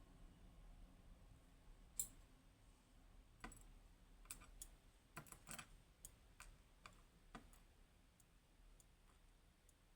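Faint, scattered clicks and light taps of small metal lock pins being handled and set down on a parts tray while a high-pin-count lock is taken apart. One sharper click comes about two seconds in, then a run of irregular clicks through the middle.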